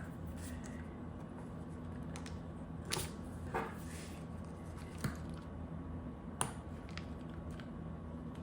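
A few light, sharp clicks and taps from handling small parts, spaced irregularly over a steady low hum.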